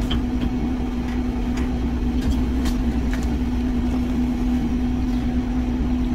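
Steady machine hum with one constant low tone, from running cafe equipment, with a few faint light clicks.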